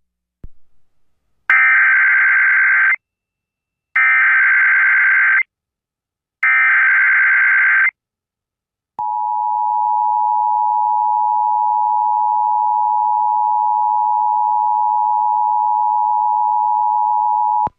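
Emergency Alert System tones announcing an Amber Alert (child abduction emergency). First come three identical bursts of SAME digital header data, each about a second and a half long. Then the steady two-tone attention signal is held for nearly nine seconds and cuts off suddenly.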